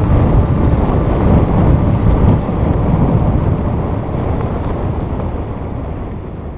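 Wind blowing on the microphone and water rushing along the hull of a small sailboat under sail, with no engine heard. It fades away toward the end.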